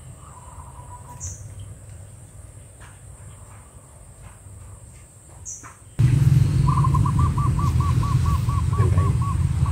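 Outdoor bird calls: a few brief high chirps, then, after a loud low rumble sets in suddenly about six seconds in, a bird calling a quick run of repeated notes, about four a second, for around three seconds.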